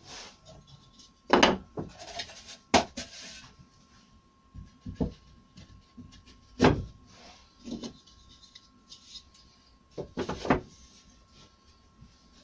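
Wooden frame pieces and a panel being handled and set down on a workbench: a string of separate wooden knocks and clunks at uneven intervals, with a faint steady tone underneath.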